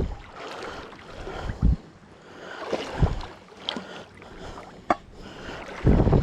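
River water rushing and sloshing as a person wades through a strong current, with a few dull low thumps, the loudest near the end.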